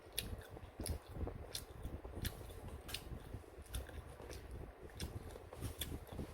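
Chewing and wet mouth smacks of someone eating rabokki, ramen noodles and chewy rice cakes, with irregular small clicks.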